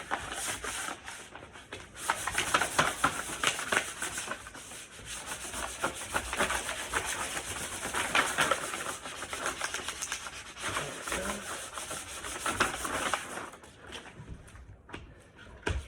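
Skateboard griptape being rubbed down hard onto the deck: a continuous gritty scraping with many small crackles as trapped air bubbles pop out. The rubbing eases off near the end.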